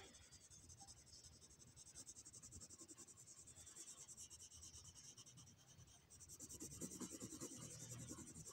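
Red coloured pencil scratching on paper in quick back-and-forth strokes, colouring in a shape. It is faint, and grows a little louder about six seconds in.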